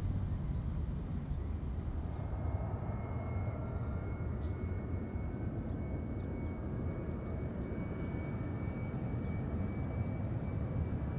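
Low, steady jet rumble of airliners. From about two seconds in, a faint whine rises slowly in pitch as the Boeing 737-800's jet engines spool up at the runway threshold for takeoff.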